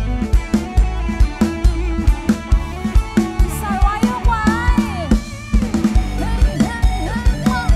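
Live band music: a drum kit with kick and snare keeps a steady beat under electric keyboard chords, and from about halfway a melody line slides up and down in pitch over it.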